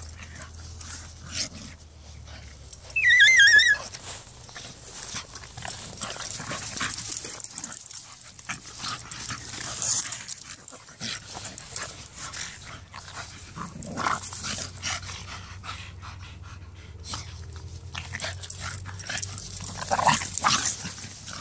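Two dogs, a pit bull and a bulldog, play-fighting on grass: scuffling noises throughout, with one loud high-pitched yelp about three seconds in.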